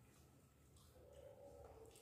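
Faint eating sounds, near silence: quiet chewing and mouth sounds as roti is torn by hand and dipped into curry.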